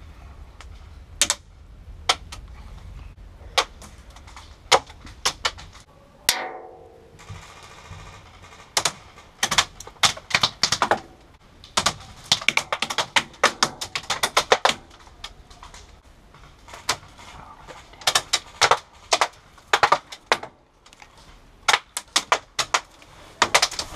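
Airsoft gunfire: sharp clicks and cracks, a few single shots at first, then rapid strings of shots. A brief falling whine sounds about six seconds in.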